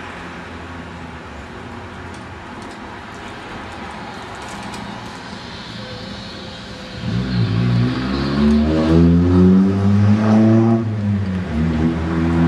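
Motor of a motorized rolling recliner running steadily, then about seven seconds in getting much louder and revving up and down several times in pitch, easing off briefly and revving again near the end.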